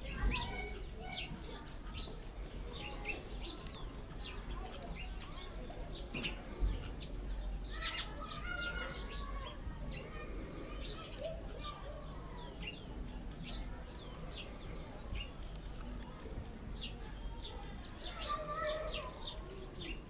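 Cape sparrows chirping: many short, high chirps, scattered and overlapping throughout, busiest about eight seconds in.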